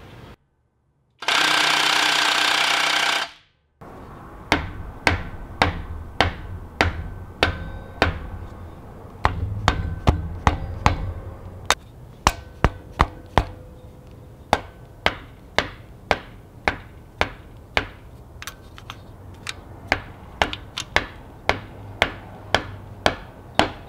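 Hammer tapping on metal, about thirty sharp ringing strikes at roughly two a second, knocking the rocker shaft of a BMW M20 cylinder head into position. About a second in, a loud burst of noise lasts about two seconds.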